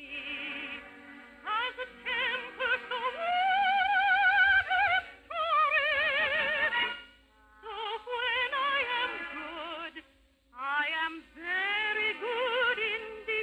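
A solo voice singing an operetta song in phrases with wide vibrato and long held notes, with music behind. The sound is thin and cut off at the top, as on an old radio broadcast recording.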